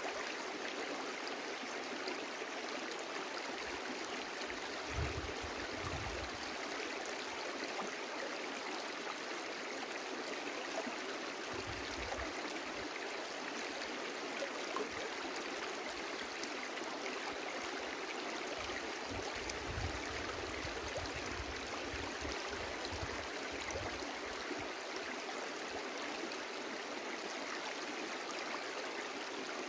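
Brook (pârâu) flowing steadily: an even rush and babble of water, with a few brief low rumbles about five, twelve and twenty seconds in.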